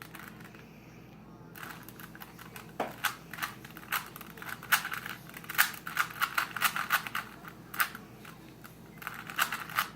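Rubik's Cube being turned rapidly by hand, a quick irregular run of plastic clicks and clacks as its layers are twisted, starting about a second and a half in.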